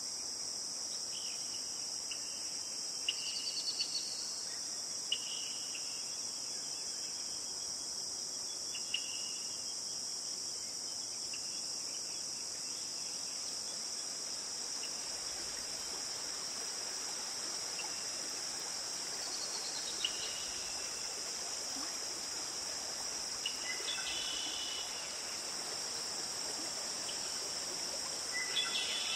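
Steady high-pitched chirring of insects, with a few short, faint chirps scattered through.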